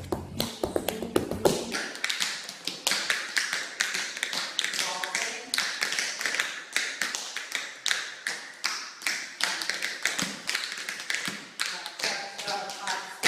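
Tap shoes striking a hard studio floor in fast, irregular runs of taps, the quick toe and heel strikes of a tap dance routine.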